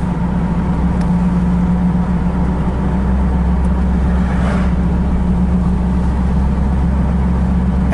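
Car engine running with a steady low hum, heard from inside the car.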